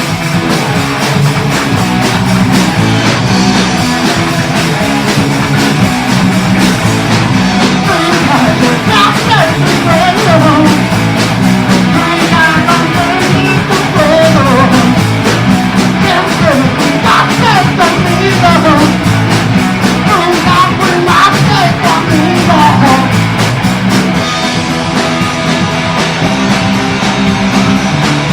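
Punk rock band demo recording: electric guitar, bass and drums playing at full volume, with a lead vocal singing from about eight seconds in until about twenty-three seconds in.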